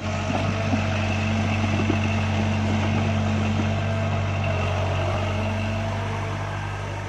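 Sumitomo S160 crawler excavator's diesel engine running steadily, with a steady higher whine above the engine note. It gets a little quieter near the end.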